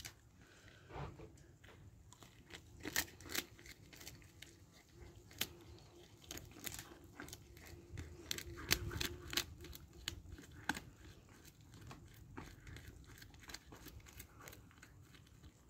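Wolfdog gnawing and tearing at a chew treat and its paper wrapping: faint, irregular crunches and crinkles.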